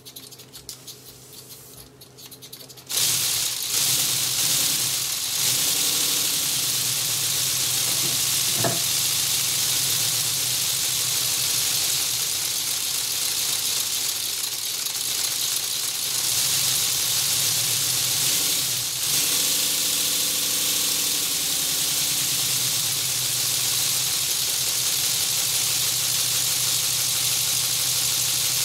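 Lego pneumatic inline-12 engine running on compressed air. It is faint at first, then about three seconds in it comes on loudly and runs steadily: a loud hiss of exhausting air over a fast rattle of plastic pistons and valves.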